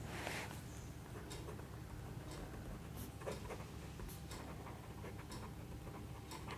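A pen writing on notebook paper: faint scratching with a few soft ticks as the pen moves across the page.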